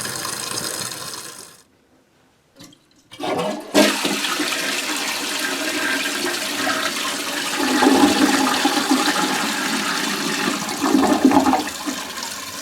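Toilet flushing: water rushes in a few seconds in after a sharp click, then surges again twice. This is a double flush, a sign that the adjustable Fluidmaster 502 flapper is still holding open too long at setting 7.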